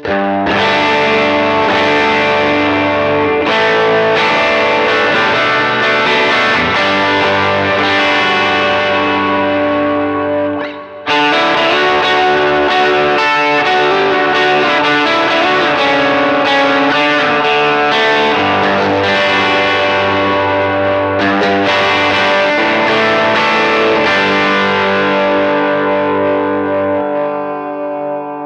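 Electric guitar played through a Very Good Amp Co EP Drive overdrive pedal, giving a distorted tone: full chords strummed and left ringing, with a short break about eleven seconds in and the last chord fading near the end.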